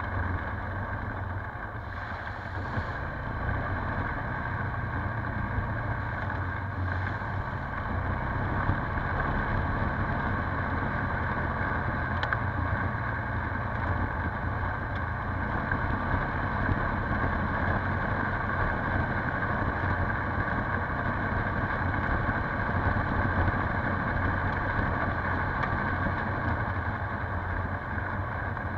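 Polaris Sportsman 570 ATV's single-cylinder engine running steadily under way, a little louder after about eight seconds.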